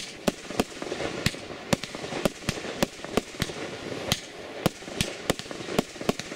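Aerial fireworks shells bursting overhead: a quick, uneven run of sharp bangs, about two or three a second.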